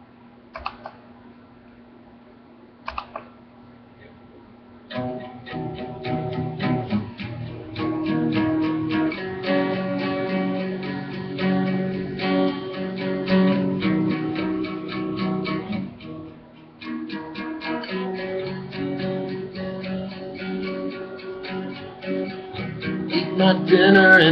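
Acoustic guitar with a capo, strummed chords of a pop song's intro, starting about five seconds in after a few faint clicks and breaking off briefly in the middle before the strumming resumes.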